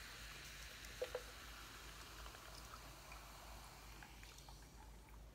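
Sparkling water fizzing over ice in a glass mason jar just after pouring, a faint hiss that dies away over a few seconds. A couple of light clinks sound about a second in.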